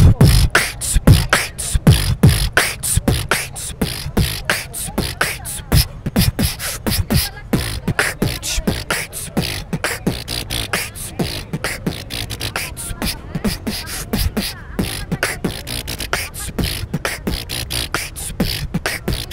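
Human beatboxing into a handheld microphone: a fast, steady rhythm of vocal kick-drum and snare and hi-hat sounds with deep bass hits.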